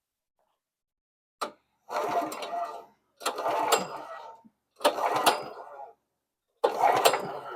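Recoil starter cord of a Honda GX270 engine pulled four times, each pull about a second long with sharp clicks in it, turning the engine over to check the spark plug for spark.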